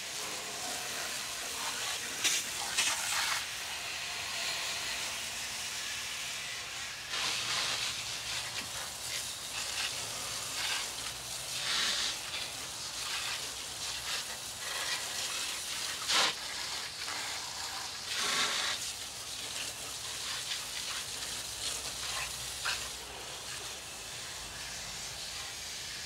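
Water spraying from a garden hose nozzle onto a Bryant Evolution air-conditioner condenser coil, a continuous hiss with louder surges every few seconds. This is the pre-soak that wets the coil before cleaning.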